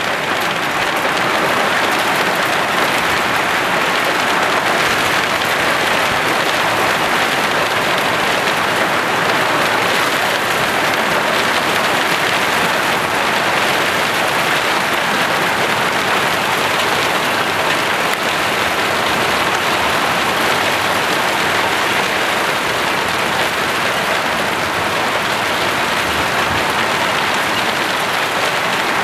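Hailstorm with heavy rain pounding on garden shrubs, lawn and patio: a steady, dense downpour of countless small impacts with no letup.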